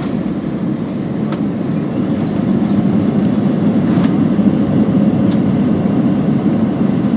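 Steady rumble of an airliner rolling along the runway after touchdown, heard inside the cabin: engine and wheel noise that grows louder about two seconds in, with a few faint rattles.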